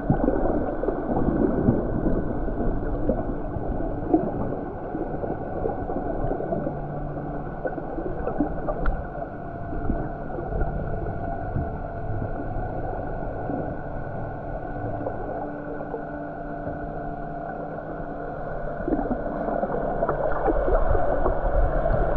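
Muffled underwater sound: water gurgling and bubbling, with steady low hums underneath that shift pitch every few seconds.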